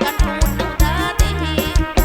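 Kantrum folk music played live through a PA system: a steady, evenly spaced drum beat over a bass line, with a wavering high melody carried above it.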